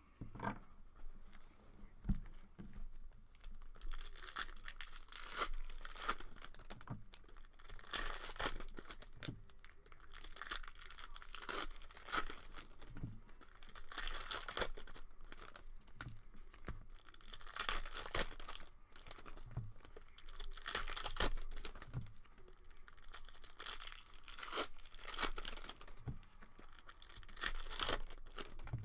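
2019-20 Panini Prizm cello pack wrappers being torn open and crinkled by hand: an irregular run of rips and plastic rustles.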